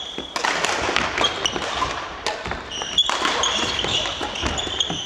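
Badminton doubles rally: rackets hitting the shuttlecock with sharp clicks and sneakers squeaking in short high chirps on the wooden court floor, over background voices.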